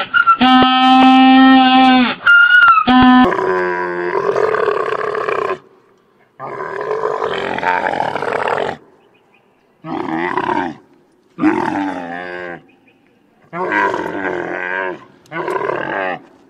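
Camel calling: a run of six long, rough calls, each lasting one to two seconds with short pauses between, starting about three seconds in. Before them a steadier, higher-pitched call breaks off sharply.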